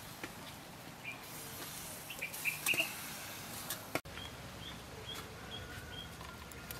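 Small birds chirping faintly in the background: a few short calls in the first three seconds, then a run of about six short, evenly spaced high notes in the second half.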